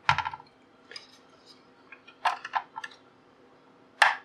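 Scattered small clicks and scrapes of a screwdriver and wire ends working the screw terminals of a metal-cased switching power supply, with a sharper knock near the end.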